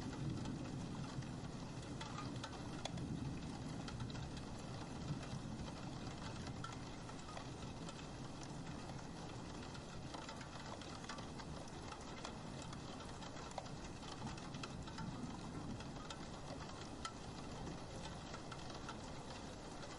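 Rain falling on a roof window: a steady patter of many small drops hitting the glass.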